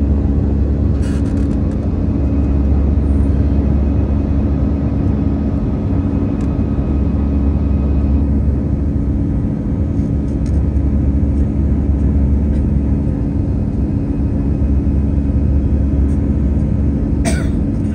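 Steady jet-engine drone and low rumble heard inside the cabin of an Airbus A320-214 climbing after takeoff, from its CFM56 turbofans and the airflow past the fuselage, with a steady low hum. A brief faint click comes about a second in, and another near the end.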